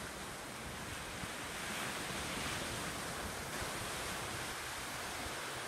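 Small sea waves washing onto a rocky shore, a steady surf hiss that swells gently and eases, with wind rumbling on the microphone.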